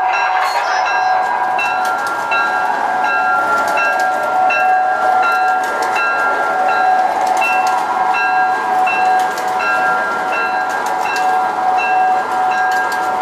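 MTH Standard Gauge tinplate passenger train rolling past on three-rail track: a steady rush of wheels with a regular clickety beat, a short ringing note repeating about every two-thirds of a second, and scattered sharp clicks.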